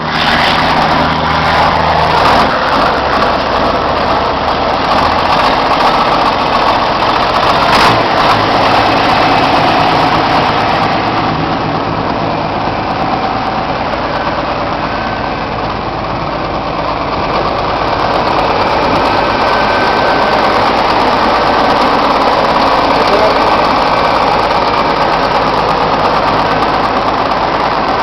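John Deere 4960 tractor's six-cylinder diesel engine running steadily, with a single sharp knock about eight seconds in.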